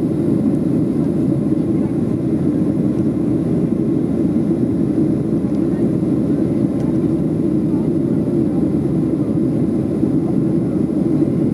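Steady cabin roar inside a Boeing 737-600 in flight shortly after takeoff: the CFM56 turbofan engines and the airflow over the fuselage, heard from a window seat over the wing.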